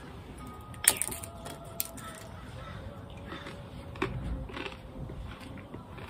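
Unleavened communion bread being broken and handled on a plate: a few sharp snaps and clicks, the loudest about a second in, with smaller ones about two and four seconds in.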